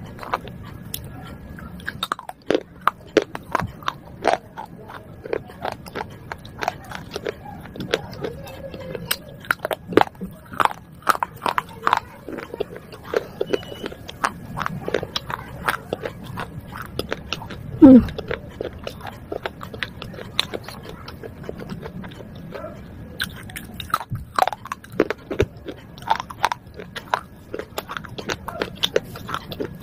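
Close-miked biting and chewing of broken baked-clay pot shards: an irregular run of sharp crunches and crackles throughout, with the loudest sound about eighteen seconds in.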